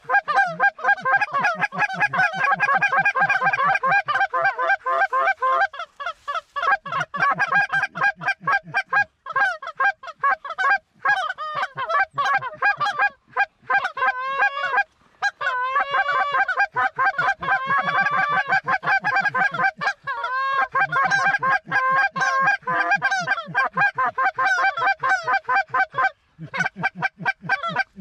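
Cackling-goose calls: a rapid, continuous string of high-pitched yelps and clucks, broken by a few brief pauses.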